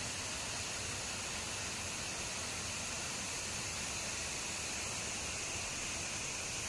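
Steady rushing of water coming down a small rocky waterfall, an even unbroken hiss.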